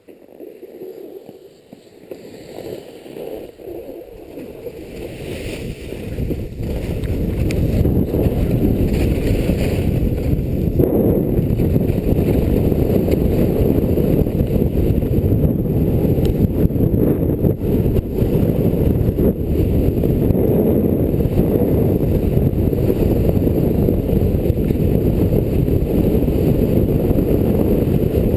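Wind buffeting the camera's microphone as a speedrider picks up speed downhill on skis, building over the first several seconds into a loud, steady low rush.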